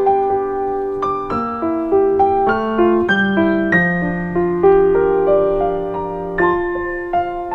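Background music: a piano playing a melody, each note struck and then fading.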